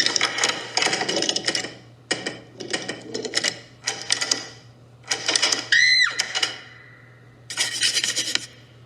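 Cartoon mechanical sound effects: several bursts of rapid clattering and rattling, like a small machine whirring and ratcheting, with a short squeak that rises and falls about six seconds in.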